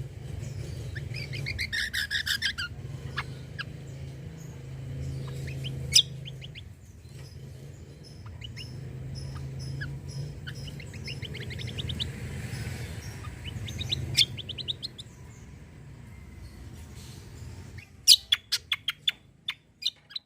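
Kecial kombo and cucak kombo songbirds singing: fast chattering trills and sharp piercing notes, ending in a run of loud sharp notes near the end. A steady low hum runs beneath.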